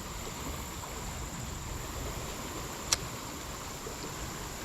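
Creek water running steadily, with one sharp click about three seconds in.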